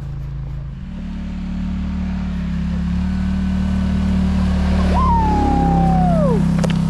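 A motor vehicle's engine running steadily and getting louder as it comes closer. About five seconds in there is a brief high falling tone.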